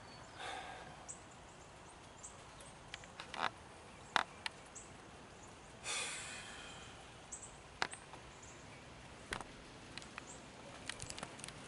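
Faint outdoor ambience with scattered light clicks and knocks from camera handling and steps on a wooden deck, and a breathy exhale about six seconds in.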